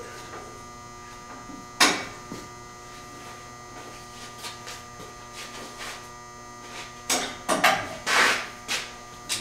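Steady electrical hum, with a single sharp clank about two seconds in and a cluster of knocks and a short scrape near the end, from hand tools being handled and set down.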